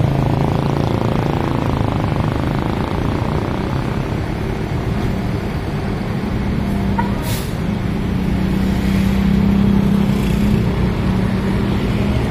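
Diesel tour bus engine running, its pitch stepping up about eight seconds in as it picks up revs. A short sharp air-brake hiss comes about seven seconds in.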